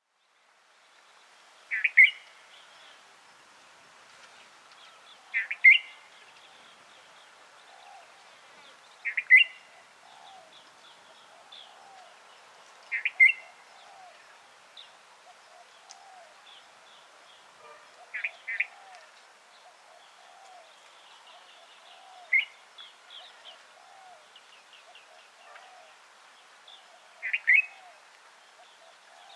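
White-eared bulbul calling: a short, loud call of two or three quick notes, repeated seven times at roughly four-second intervals. Faint twittering of other small birds runs underneath.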